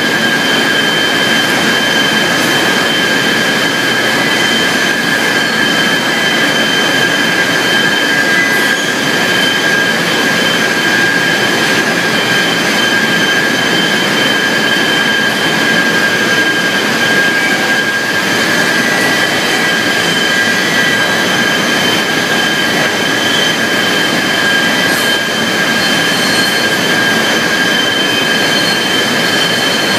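Poultry processing line machinery running: a loud, steady hiss and rumble with two steady high-pitched whining tones.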